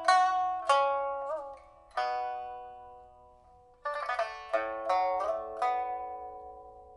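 A 1985 Shen Huanchun pipa of old Cochinchina rosewood, freshly fitted with a new soundboard and frets, played solo: slow single plucked notes, one bent in pitch about a second in, then a quick cluster of notes near the middle, each left to ring and fade.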